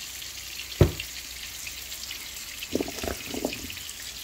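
Steady frying sizzle in the background, with one loud thump about a second in and a short run of knocks around three seconds in as seasoned potato and carrot pieces are tossed in a stainless steel bowl.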